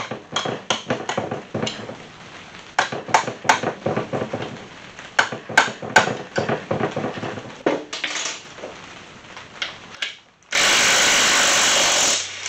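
A rubber mallet knocking a steel combination wrench on a transfer-case bolt, a quick run of knocks and metal clinks, to break the stubborn bolt loose. Near the end a Ryobi cordless impact wrench runs in one loud burst of about a second and a half.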